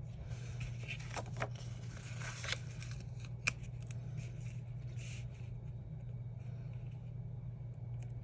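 Paper planner pages and stickers handled: rustling and light scraping as the pages are shifted and a sticker is peeled off and pressed down by hand, with a few small clicks and one sharp tap about three and a half seconds in, over a steady low hum.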